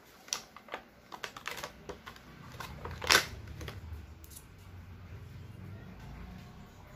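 Plastic packaging tray and a USB data cable being handled: a run of light clicks and crinkles as the cable is lifted out of its tray, the loudest a short scratchy rasp about three seconds in, followed by a low rumble of handling.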